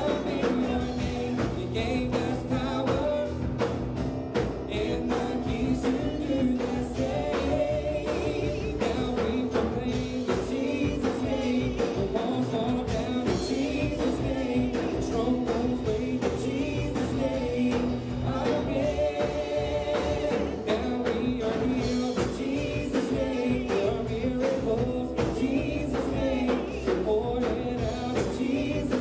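Live worship band playing a song, with vocalists singing over electric bass, keyboards and a steady drum beat.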